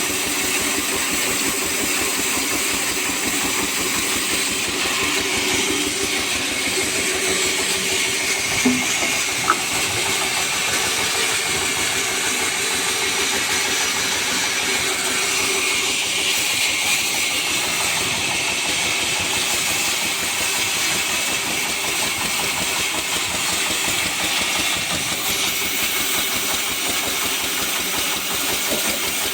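Sawmill machinery running steadily: an even mechanical drone with a fast, regular pulse underneath and a hiss over the top. Two short knocks come close together about nine seconds in.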